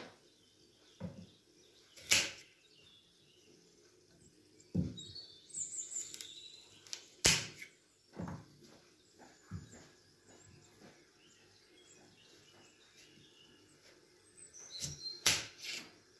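Small knife cutting through raw carrots and knocking on a stone cutting board: a few separate sharp knocks and duller thumps with quiet gaps between, the loudest about two seconds and seven seconds in.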